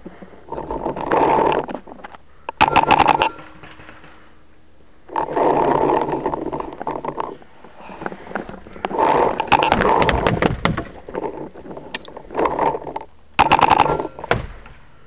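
Hard breathing close to the microphone inside a paintball mask, in rhythmic gusts, with two quick volleys of rapid paintball marker shots, one about three seconds in and one near the end.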